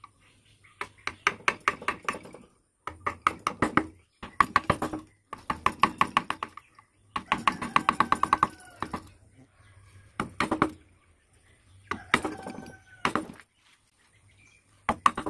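Carving chisel being tapped into wood in quick runs of strikes, each strike with a short ringing note, with brief pauses between runs.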